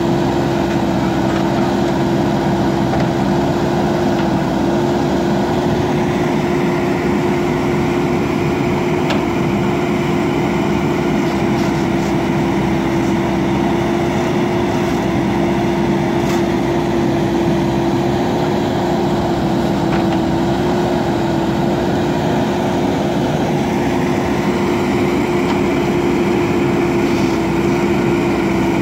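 JCB backhoe loader's diesel engine running steadily, a constant drone that holds the same pitch throughout.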